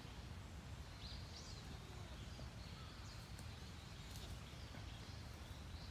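Faint outdoor ambience: a steady low rumble with a few bird chirps about a second in, and a few faint clicks later on.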